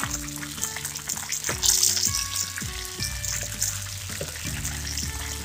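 Cornflour-coated sweet corn kernels deep-frying in hot oil, a dense sizzle and crackle, loudest about a second and a half in, as a steel slotted spoon stirs through the oil. Light background music plays underneath.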